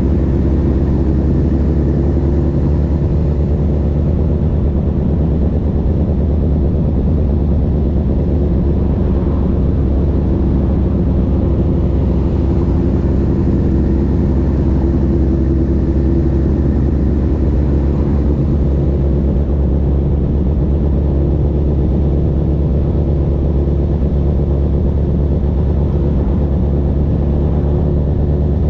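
Honda CB1000R inline-four through a CS Racing full exhaust system, running under way at a fairly steady engine speed, its pitch drifting only slightly up and down.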